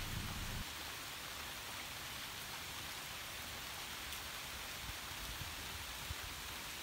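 Steady rain falling on leafy trees, an even hiss of drops on leaves.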